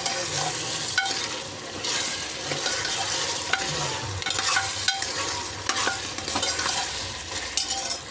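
Mutton trotters (paya) sizzling in hot oil in a pressure cooker while a steel spoon stirs and scrapes through them, with a few knocks of the spoon against the pot. The meat is being fried with onions and ginger-garlic paste.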